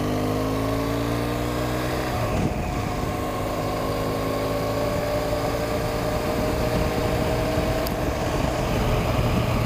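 BMW R1200GS boxer-twin engine running under way, its pitch rising as the bike gathers speed, with a gear change about two seconds in, over wind and road noise.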